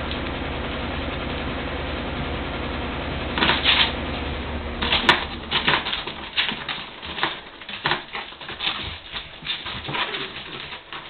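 Seven-week-old puppies play-fighting. Over a steady background hiss, a run of short, irregular scuffling and squeaky sounds comes about one or two a second from about five seconds in.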